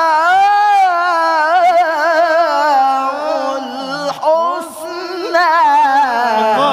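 A male Quran reciter's high voice in melodic tilawah style, holding a long ornamented run with rapid turns that slowly falls in pitch. It breaks off briefly about four seconds in, and he begins the word "al-husna" near the end.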